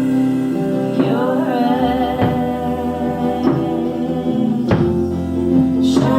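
Live rock band playing a song: drums, bass and guitar under a sustained sung melody with vibrato that comes in about a second in.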